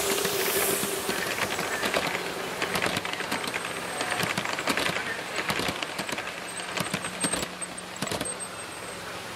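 Large-scale live steam model train running past: steam hissing as the locomotive goes by, then a quick, irregular clicking of the cars' wheels over the track, getting quieter near the end as the train moves off.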